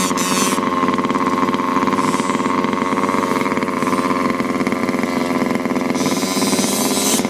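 HPI Baja 5T RC truck's small two-stroke petrol engine running, a steady buzzing drone with little change in pitch.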